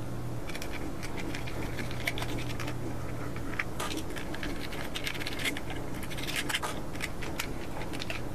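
Light, irregular clicks and scratches of a small screwdriver and small screws working against a 3D-printed plastic watch case as it is taken apart, over a faint steady low hum.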